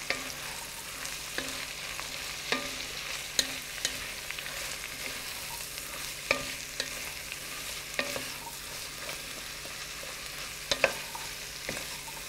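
Chopped vegetables sizzling in hot oil in an enamelled pot while being stirred with a wooden spatula, which knocks against the pot every second or so, the sharpest knocks near the end.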